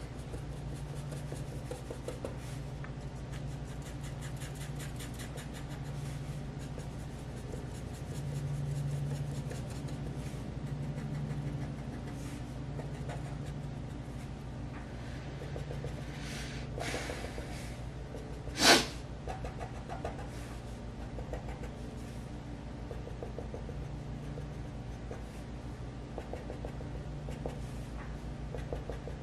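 Black permanent marker scratching on paper in many short hatching strokes, over a low steady hum. One short, sharp, louder sound comes about two-thirds of the way through.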